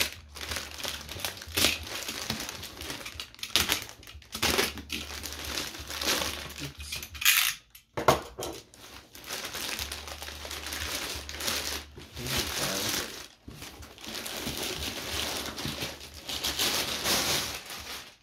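Shoe packaging being unwrapped and handled by hand: irregular crinkling and rustling, with a few sharper, louder crackles about seven to eight seconds in.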